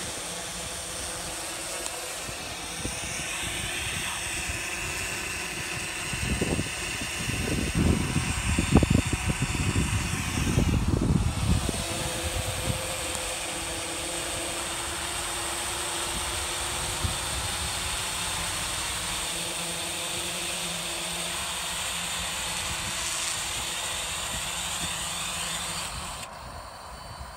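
Yuneec Typhoon H 480 hexacopter's six electric motors and propellers humming steadily in flight. From about six to twelve seconds in there is a spell of loud, low, gusty rumbling, and near the end the hum drops away.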